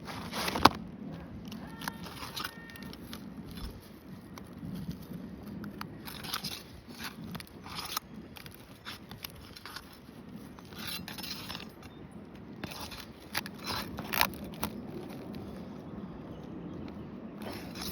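Asphalt shingles being pried up and pulled apart by hand, giving irregular crackling, scraping and tearing sounds with a few sharp cracks. The sharpest crack comes about a second in.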